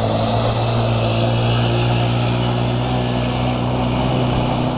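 Small youth ATV (four-wheeler) engine running at a steady speed, a constant hum that neither rises nor falls.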